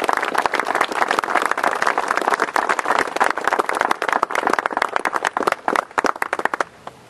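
A small crowd applauding. The clapping is dense at first, then thins to a few scattered claps that stop about six and a half seconds in.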